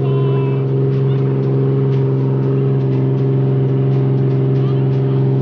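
Bumboat's diesel engine running at a steady cruising drone, over the rush of the boat's wake.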